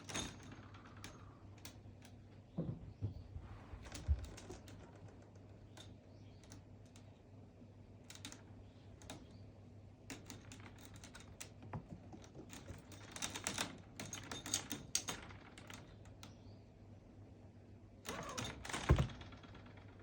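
Cats' claws scratching and clicking on cloth in irregular clusters, over a steady low hum.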